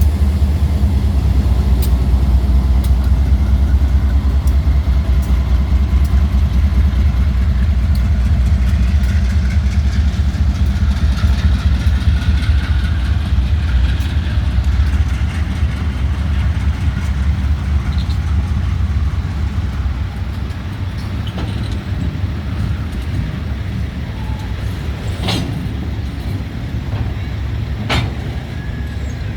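GE diesel-electric freight locomotives running with a deep, steady engine rumble that eases off somewhat in the last third, and two sharp metallic clanks near the end.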